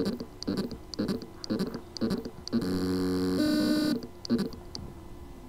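Seagate 3.5-inch desktop hard drive's spindle motor straining to spin up: a pulsing buzz about twice a second, then two steadier hums of different pitch for about a second and a half, dying away near the end. The motor can turn but cannot reach full speed because of loose motor contacts on the drive's circuit board.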